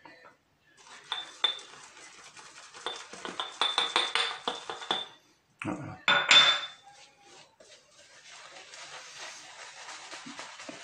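Shaving brush working lather in a hard bowl, with repeated clinking strokes that ring. From about eight seconds in, the brush scrubs over the face with a steady scratchy swishing.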